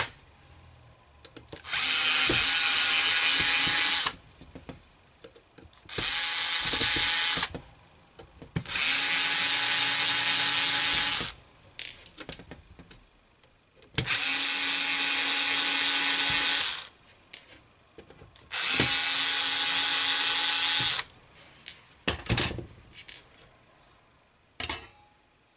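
Bosch cordless electric screwdriver running in five separate spurts of about two to three seconds each, its motor giving a steady whine as it backs out the screws of a floppy disk drive's metal bottom plate. Small clicks and metallic rattles of screws and the plate come in the gaps and near the end.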